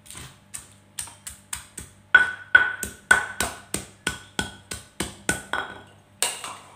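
Stone pestle pounding buni berries in a stone mortar: sharp knocks about three a second, many with a short ring. Near the end there is a louder ringing clink as a metal spoon meets the ceramic bowl of berries.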